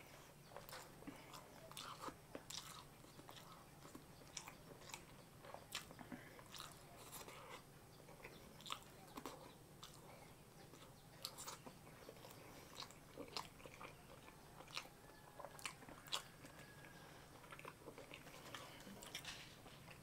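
A person chewing mouthfuls of semur jengkol, jengkol beans stewed in sweet soy sauce, with irregular wet mouth clicks and smacks.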